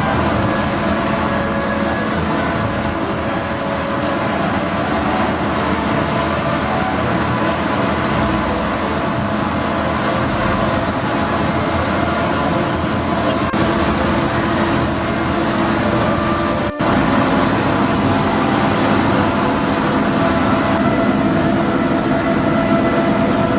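Steady mechanical rumble and hum of a car ferry under way, its engines and machinery running, with a momentary break about 17 seconds in.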